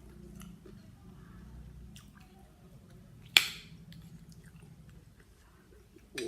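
Close-up eating sounds: chewing with small wet clicks while eating blue swimmer crab salad, and one loud, sharp crack a little past halfway through.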